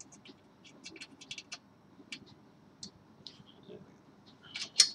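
Small metallic clicks and ticks of fingers fitting an M4 screw and nut into a metal 3D-printer frame bracket, scattered through, with a brief louder cluster of clinks just before the end.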